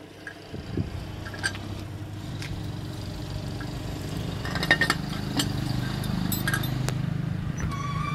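Sharp metal clinks as a hydraulic bottle jack and its steel handle are handled and set under a truck's axle, over the low hum of a heavy vehicle's engine that grows louder. A vehicle horn starts sounding near the end.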